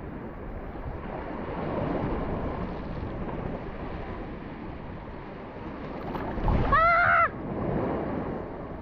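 Sea surf washing and swelling around a wading angler, with wind on the microphone. About seven seconds in, a short pitched call that rises and falls in pitch cuts through, the loudest sound.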